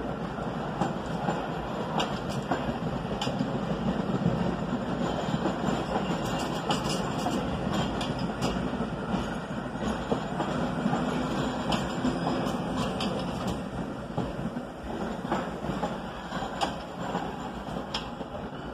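Vintage New York City subway train running along the track, a steady rumble with wheels clicking over the rail joints, slowly getting quieter toward the end.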